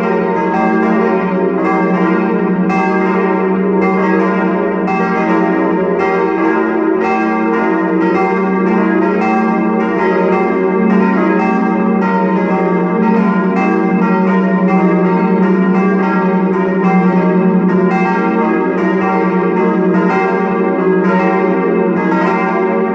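Full peal of four steel church bells, cast by Böhler of Kapfenberg in 1922 and tuned E♭, F, G and B♭, all ringing together. Their strikes come several times a second in an uneven, overlapping pattern over a continuous ringing hum.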